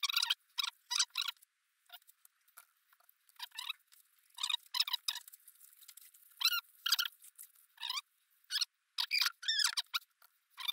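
Short, high, squeaky calls from a small animal, coming in quick irregular clusters, some of them wavering in pitch.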